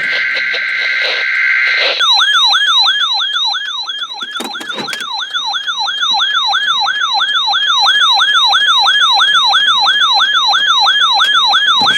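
Weather radio receiver alert: a short SAME digital header burst, a steady two-tone data buzz, then from about two seconds in the receiver's siren alarm, a tone sweeping up and down about three times a second. The alarm is set off by the coded weekly test signal.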